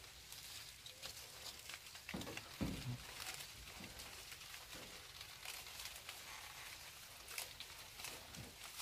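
Apple leaves rustling and crackling as they are stripped off the branches by hand, with a few soft low thumps, the loudest about two and a half seconds in.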